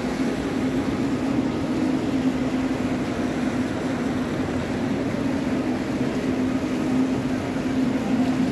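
Steady background noise of a large indoor shopping and entertainment hall: a constant low hum under an even hiss.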